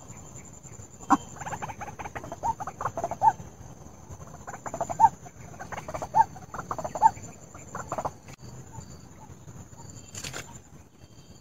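White-breasted waterhen calling in two bouts of rapid, clucking notes with a short pause between, over a faint steady high-pitched whine. A single sharp click comes near the end.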